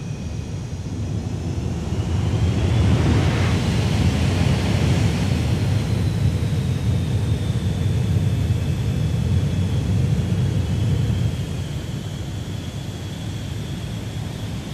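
Jet fighter engine rumble with a faint high whine that slowly falls in pitch, growing louder about two seconds in and easing off near the end.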